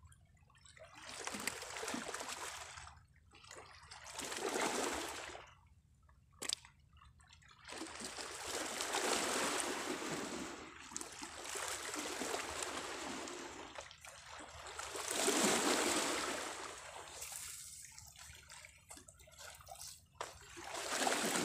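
Small sea waves washing and lapping at the shore, coming in surges that swell and fade every few seconds.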